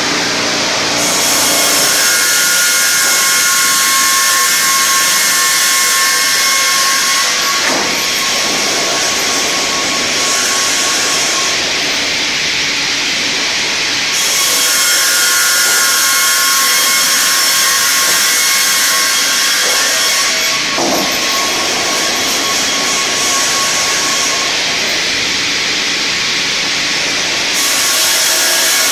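Twin circular saw blades of an automated log sawmill cutting spruce, a loud steady sawing noise with a faint whine under it. The hiss swells and eases several times as the log passes through the blades.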